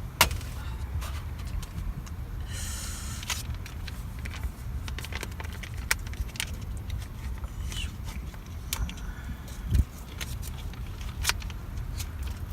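Scattered clicks and short scrapes of utensils on cookware over a steady low rumble.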